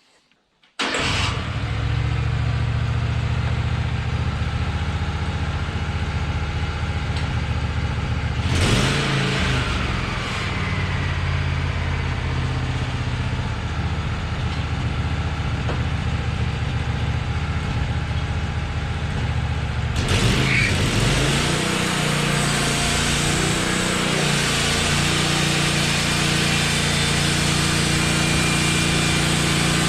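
Wood-Mizer LT15 band sawmill running steadily with its engine droning. About twenty seconds in a brighter hiss joins it as the band blade cuts through a pine log.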